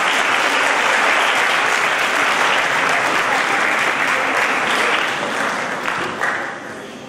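Audience applauding, a dense steady clapping that dies away about six seconds in.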